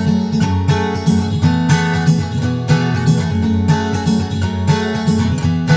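Background music led by a strummed acoustic guitar, with a steady rhythm of strokes.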